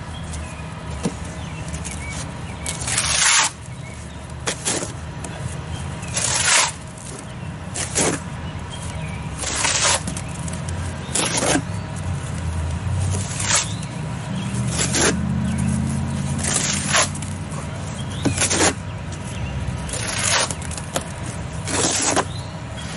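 Wet mortar being scraped out of a wheelbarrow and smeared onto brick with a hand tool, a short scraping stroke about every one and a half to two seconds, over a low steady rumble.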